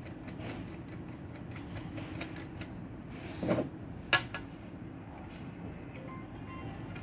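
Light, irregular metallic clicks and taps as steel bolts are turned by hand into the threaded holes of a salon chair's metal base plate. A dull knock comes about three and a half seconds in, followed just after by a single sharp click, the loudest sound.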